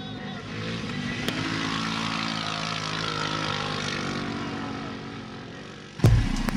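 An engine drones steadily with a low hum, swelling about a second in and fading near the end. Just before the end it gives way abruptly to the louder, rougher sound of a 150 cc off-road buggy engine with sharp clicks.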